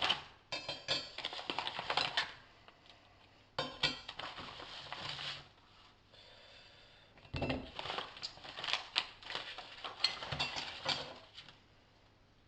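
Small metal parts of an exhaust-pipe dent-removal kit (bolts, plates and clamps) clinking and rattling as they are handled and taken out, in three bursts of clatter with short pauses between.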